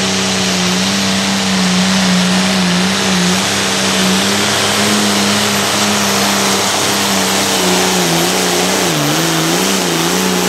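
International Harvester 1066 hot farm pulling tractor's 466-cubic-inch diesel engine running wide open under load as it pulls the sled. It makes a loud, steady drone whose pitch starts wavering up and down about eight seconds in.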